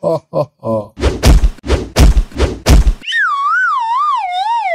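A quick run of heavy cartoon punch thumps, followed by a wobbling whistle that slides down in pitch: the cartoon 'dizzy' sound effect for a character knocked senseless.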